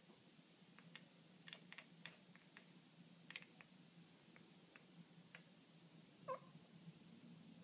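Maine Coon cross cat chattering while watching birds: a run of quick, faint clicks, then about six seconds in a single short chirp, the loudest sound.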